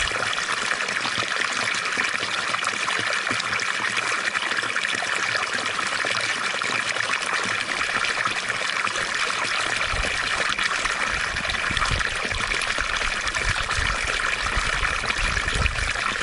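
Water fountain splashing and trickling steadily. A low rumble joins it about ten seconds in.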